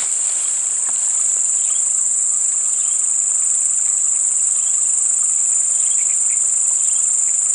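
Loud, steady insect chorus: one continuous high-pitched shrill with no break.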